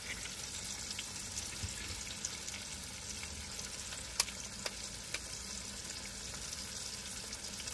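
Spiced masala and a freshly added egg sizzling in hot oil in a pan: a steady frying sizzle. About four seconds in there are three sharp clicks, about half a second apart.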